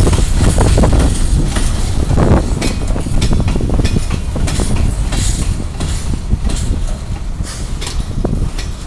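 Freight train of coal hopper wagons rolling past, a heavy low rumble with sharp clacks of wheels over rail joints, slowly fading as the wagons move away.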